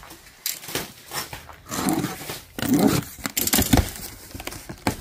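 Cardboard box being opened by hand: packing tape slit with a box cutter and the flaps pulled back, giving irregular scraping and rustling with several sharp knocks.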